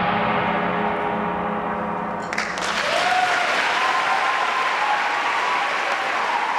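Brass band's final chord held and ringing, then audience applause breaking out suddenly a little over two seconds in and continuing.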